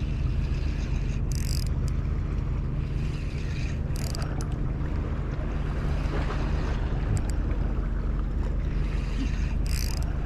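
A motor running steadily with a low hum, under rough wind noise on the microphone, with three short hisses about a second and a half, four seconds and ten seconds in.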